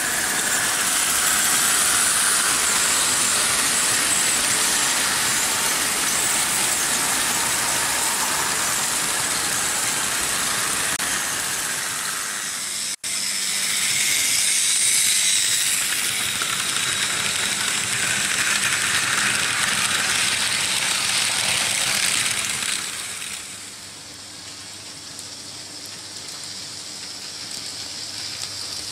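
Märklin H0 model trains running on metal M-track: a steady rushing rattle of wheels and motors, broken by a split-second gap about halfway through and turning quieter for the last few seconds.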